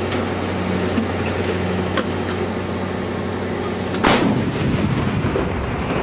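A single artillery gun firing about four seconds in: one sharp, loud blast that rumbles away afterwards, over a steady low hum.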